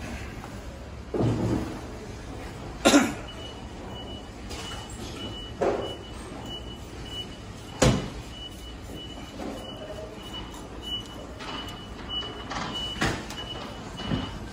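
Knocks and thuds as a large fish is cut and handled on a plastic cutting board; the sharpest come about three and eight seconds in. Behind them are a steady low rumble and a high electronic beep repeating a couple of times a second, which starts about three seconds in.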